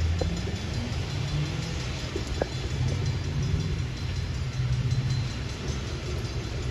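Low, continuous engine rumble with a steady hiss of rain behind it and a few faint clicks.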